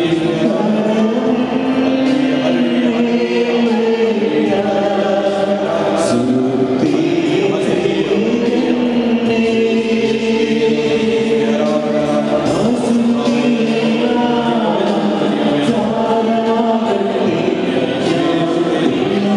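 A group of voices singing a devotional hymn, with long held notes.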